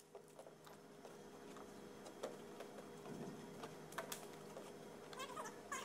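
Faint, scattered clicks and taps from a climber moving on an indoor wall, hands and shoes on the holds, over a steady low hum of the room. A few short squeaks come near the end.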